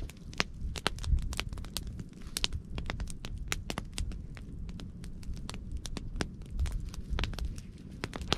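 Wood campfire crackling: irregular sharp pops and snaps, several a second, over a low rumble.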